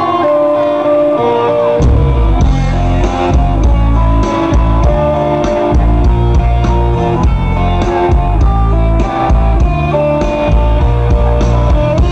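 Live rock band playing loud: an electric guitar riff alone, then bass guitar and drum kit come in about two seconds in and the full band carries on.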